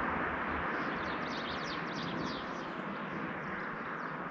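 Outdoor ambience: a steady rushing noise that slowly fades, with faint high bird chirping over it for the first few seconds.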